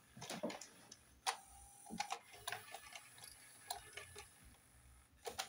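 Denon UDCM-M10E CD changer mechanism making soft, irregular clicks and ticks while it changes discs, rotating its drum to move the CD player to disc 1. There is one sharper click about a second in.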